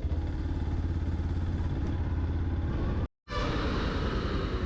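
Yamaha FZ-X motorcycle's single-cylinder engine running steadily while riding, a low rapid pulsing rumble. The sound drops out completely for a moment about three seconds in.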